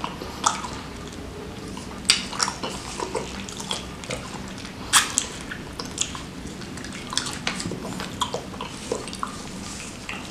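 Close-miked wet eating sounds: chewing and sucking meat off a chicken wing dripping with broth, with irregular sharp wet smacks and clicks, loudest about two and five seconds in.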